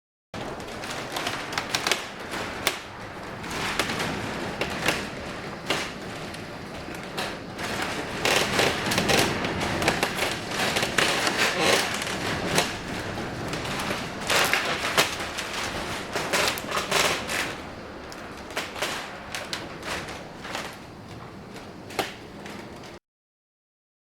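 Storm wind and rain during a hurricane: a rushing noise full of rapid taps and clicks that swells and eases in gusts.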